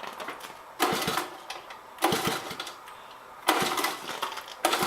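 1983 Honda ATC 110's small single-cylinder four-stroke engine being cranked over on a cold start with the choke on: three short bursts of turning over, then catching near the end and starting to run with a quick, even beat.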